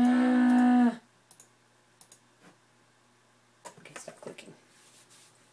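A loud, steady held tone lasting about a second at the start, then scattered clicks with a short cluster about four seconds in, from laptop keys or a mouse being pressed on a frozen computer.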